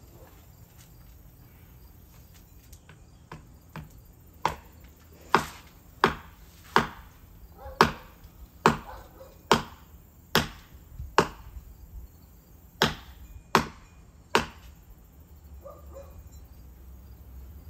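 A series of about a dozen hard blows struck at a partly sawn tree trunk, roughly one a second, after a couple of lighter taps; the blows stop a few seconds before the end.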